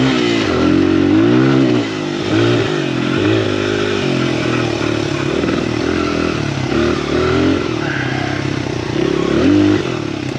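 Honda XR100R's small four-stroke single-cylinder dirt bike engine revving up and down repeatedly as the throttle is worked, the pitch rising and falling about every second or two.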